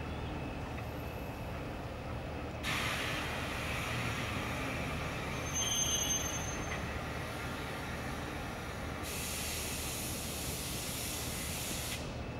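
British Rail Class 08 diesel shunter running with a steady low rumble. About three seconds in a loud hiss of air starts, with a brief high squeal around six seconds; a second hiss starts about nine seconds in and cuts off suddenly near the end.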